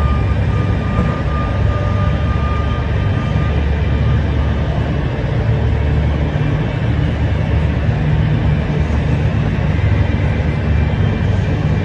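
Big Bud four-wheel-drive tractor's Caterpillar diesel engine running loud and steady, with a deep drone.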